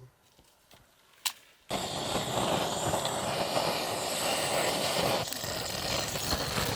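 A single sharp click, then steady vehicle running noise starts abruptly under two seconds in and goes on evenly.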